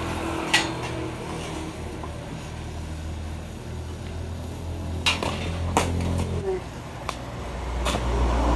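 Sharp metal clinks and knocks of metal parts or tools being struck or handled: one about half a second in, then several more from about five to eight seconds in. A steady low hum runs beneath them and grows louder near the end.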